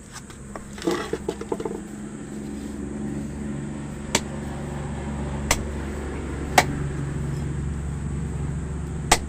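A steady low engine-like hum, with a cluster of clicks about a second in and a few sharp, single knocks spaced a second or more apart.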